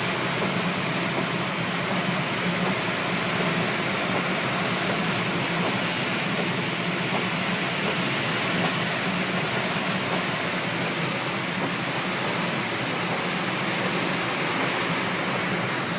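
Heavy rain pouring down, a steady hiss of water, with a steady low hum underneath.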